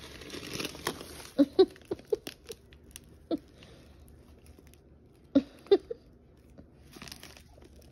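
Clear plastic bag of hay crinkling and rustling as a rabbit noses and nibbles at it, heard as a soft rustle at first and then a scattering of short, sharp crackles and clicks, loudest twice about four seconds apart.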